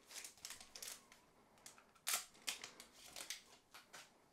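A hockey card pack's wrapper crinkled and torn open, then the cards slid out and handled, in short scratchy rustles with a louder rip about two seconds in.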